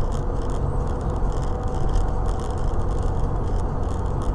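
Steady road noise and engine drone of a moving car, recorded from inside the cabin by a dashcam. It is a low rumble with a faint steady hum and no distinct events.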